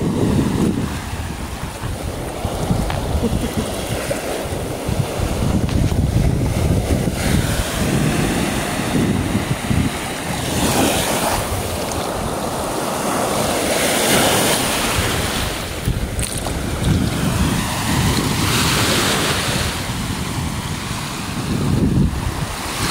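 Lake waves washing up on the shore in swells every few seconds, with wind rumbling on the microphone.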